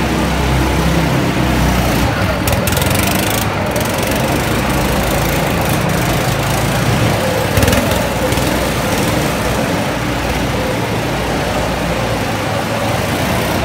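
Go-karts running on an indoor drift track, a loud steady mechanical drone, with one brief louder knock about halfway through.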